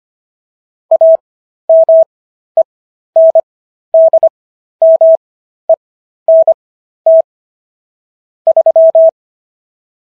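Morse code sent as a steady single-pitch beep tone: short and long beeps grouped into letters, with characters at 25 words per minute and Farnsworth spacing for 15 words per minute overall. The beeps spell out "AMENDMENT 3", ending about a second before the end.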